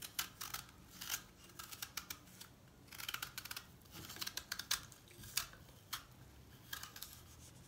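A small serrated knife peeling the hard skin off a raw quince: an irregular run of short, crisp scrapes and snicks as the blade cuts under the skin.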